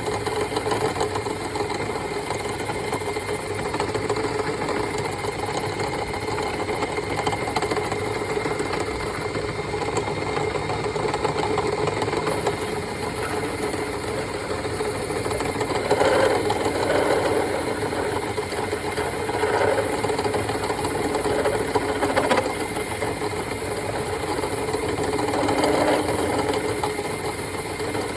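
Repurposed wood lathe running steadily with a rattle as a tool is fed against a car subframe bushing to turn down its outer diameter; the lathe is struggling with the cut, taking too much at once. The sound swells louder a few times in the second half.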